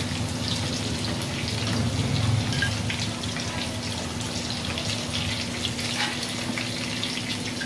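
Cubed tofu frying in hot oil in a pan, with a steady sizzle full of small pops and crackles as a slotted spatula turns the pieces. A steady low hum sits underneath.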